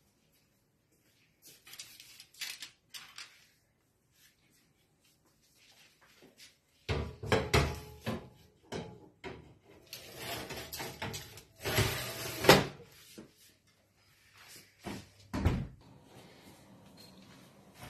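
A metal baking tray clattering and scraping as it is slid onto an oven rack, then the oven door knocking shut, with a last thump near the end.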